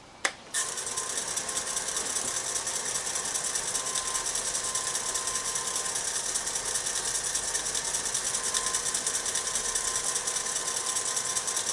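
Wood lathe switched on about half a second in, then running steadily with a fast, even ticking whir.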